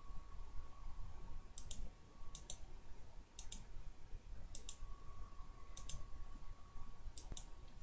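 Computer mouse clicked six times, each click a quick press-and-release pair, spaced roughly a second apart.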